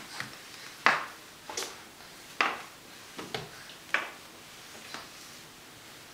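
A baby's hands slapping and sliding on a hardwood floor as he army-crawls on his belly, about six slaps at uneven intervals.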